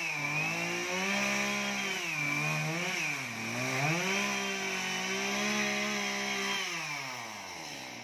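Chainsaw running at high revs while cutting into a coconut palm trunk. Its pitch sags under load about three seconds in and comes back up, then the engine drops back near the end.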